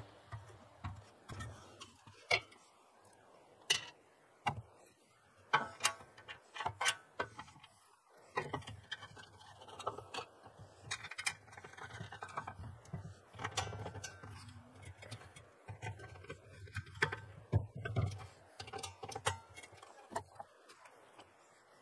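Irregular clicks, knocks and light clatter of metal grill parts being handled, fitted and set down on a wooden table while a portable table-top gas grill is assembled.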